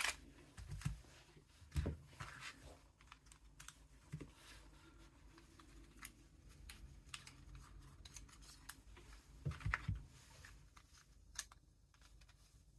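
Faint scattered clicks and taps of small parts being handled as an airsoft pistol is taken apart to change its inner barrel, with a short cluster of louder clicks about ten seconds in.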